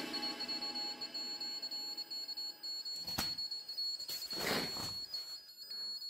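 Electronic drone from a ghost box (spirit box) device: a steady high whine over a chord of lower steady tones, with two brief bursts of static about three and four and a half seconds in.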